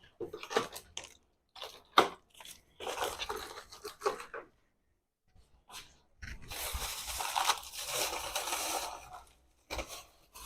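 Plastic packaging crinkling and rustling as it is handled, with a few sharp clicks and a knock about two seconds in, then two stretches of crinkling, the longer one in the second half.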